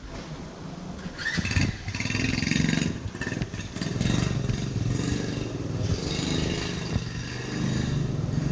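A small engine running close by, coming up about a second in and staying loud, its pitch rising and falling.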